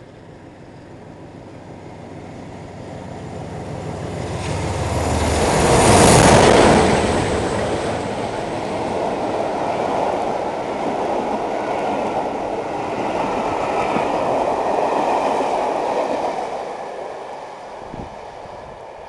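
Class 47 diesel locomotive passing at speed, its Sulzer V12 engine growing louder as it approaches and peaking about six seconds in. The steady rumble of its coaches on the rails follows, then fades as the train recedes.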